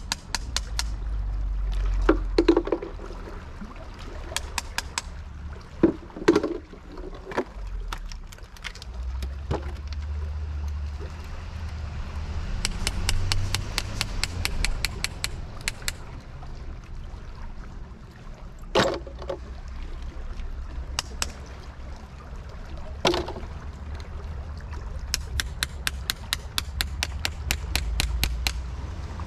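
A hand tool tapping and chipping at oysters on rock: runs of rapid sharp taps, several a second, with a few heavier knocks between them.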